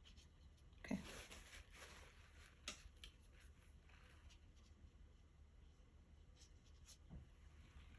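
Faint scratchy strokes of a paintbrush on watercolour paper for about a second, followed by a sharp tick and a few soft ticks.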